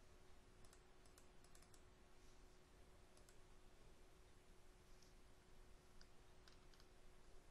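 Near silence with faint computer mouse clicks in three small groups: a quick run of about six clicks, then two, then a few more near the end.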